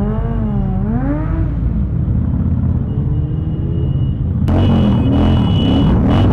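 Motorcycle engines rumbling at riding pace in a group, with one engine revving up and back down in the first second or so. Music comes in suddenly near the end.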